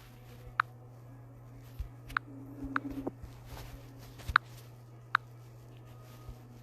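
A handful of light, irregular clicks over a steady low hum.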